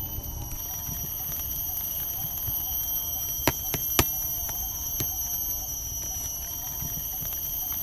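Barbecue sauce being squeezed from a plastic sachet into a plastic bowl, with two sharp clicks about three and a half and four seconds in. Behind it run a steady high-pitched whine and a low rumble.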